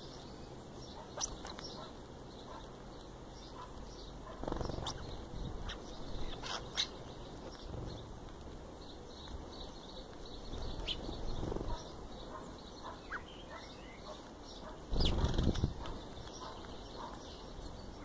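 Starlings' wings flapping close by as they land and take off, in three flurries, the loudest about fifteen seconds in, with short chirps and clicks between.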